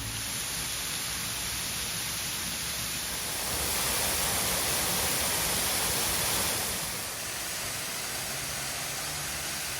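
Waterfall pouring in a steady, even rush, a little louder for a few seconds in the middle.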